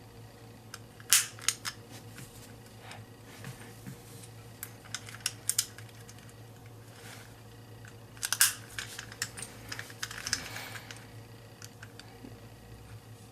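Plastic center caps being snapped onto an Alpha CC 3x3 speed cube: a handful of sharp plastic clicks at irregular intervals, with quieter handling of the plastic pieces between them.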